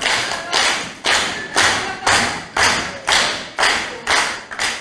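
A crowd clapping in rhythmic unison, a steady beat of about two claps a second.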